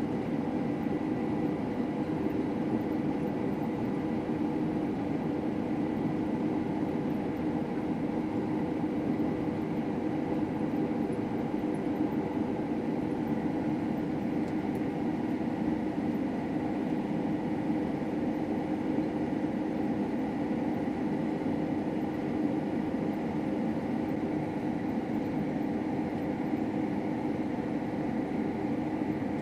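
Combine harvester running steadily while cutting wheat: a constant machine drone with a faint steady high whine over it.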